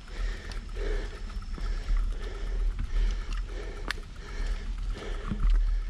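Wind buffeting and rumbling on the microphone of a camera riding along on a moving bicycle, swelling and fading unevenly, with a single sharp click about four seconds in.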